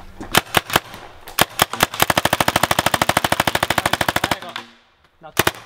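Paintball gun firing: a few single shots, then a rapid fully automatic burst lasting about two and a half seconds, then two more quick shots near the end.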